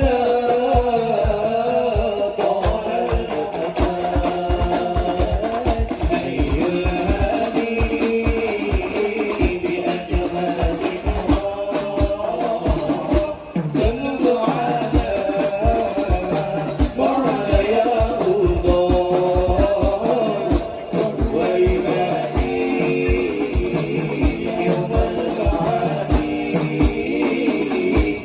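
A hadrah group performing: several male voices singing a devotional song together into microphones, over rebana frame drums beating a quick, steady rhythm.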